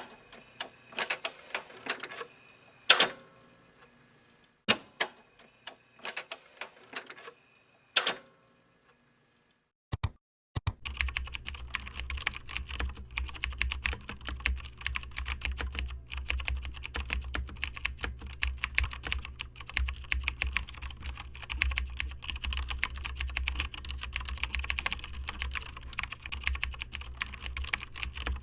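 Computer keyboard keys clicking: scattered single key presses for the first several seconds, then after a short pause fast, continuous typing from about ten seconds in, over a steady low hum.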